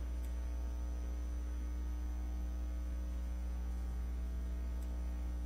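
Steady low electrical mains hum with fainter, higher hum tones above it, unchanging throughout.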